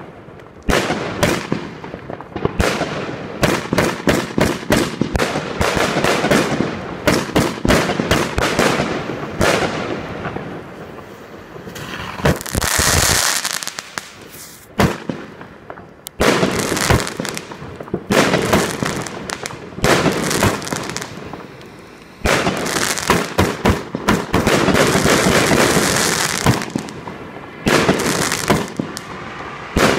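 Pangu Fireworks 'Garden Party 1' 150-shot consumer fireworks cake firing: a rapid, near-continuous run of launch shots and bursts, with two longer, denser stretches, one around the middle and one near the end.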